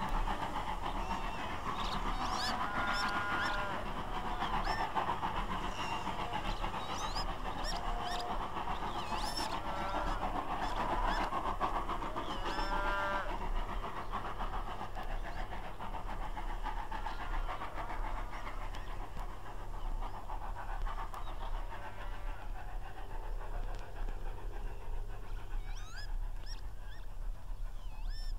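Livestock calling several times in the first half, over the fading sound of a 'Jubilee' class 4-6-0 steam locomotive working away into the distance.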